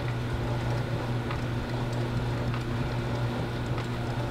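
Working cutaway chassis of a 1965 Chevrolet Corvette running on its display drive: a steady low hum with faint, irregular clicking from the turning gears and moving parts.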